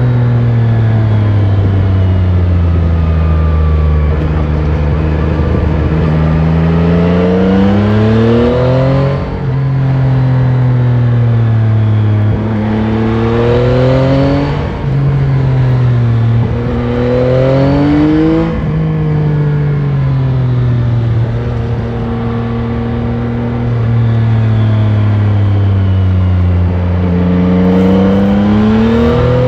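Yamaha Tracer 9 GT's 890 cc CP3 three-cylinder engine through the stock exhaust, heard onboard while riding. The revs climb under acceleration and drop sharply at upshifts about three times, with steadier stretches of cruising between, and climb again near the end.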